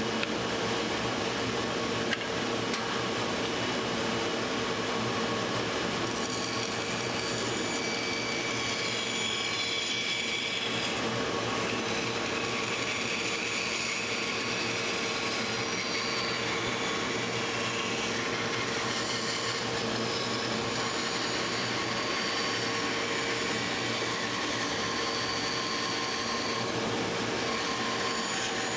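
Bandsaw running steadily with a constant hum, its blade cutting through a dry apple-wood spoon blank as it is fed.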